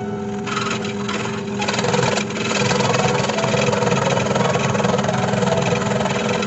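Electric jigsaw mounted under a saw table running steadily, its reciprocating blade cutting through a thin wood blank, with a constant motor hum. The cutting noise grows louder about two seconds in.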